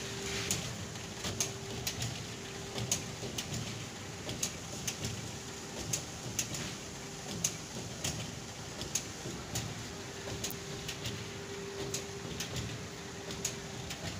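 Denim fabric relaxing machine running as the cloth feeds over its rollers: a steady mechanical hum with a faint on-and-off tone and frequent sharp clicks, about one or two a second at uneven spacing.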